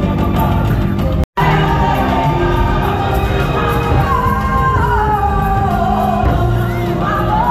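Live stage-show music with a singer's long held notes over the band, heard in a large theatre hall; the sound drops out for a split second about a second in.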